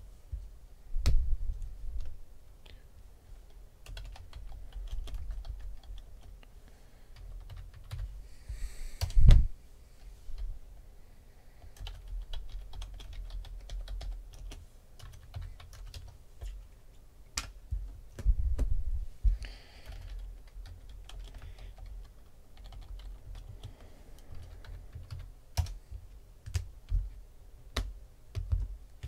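Typing on a computer keyboard: irregular runs of key clicks with pauses, a couple of brief rustles, and one loud thump about nine seconds in.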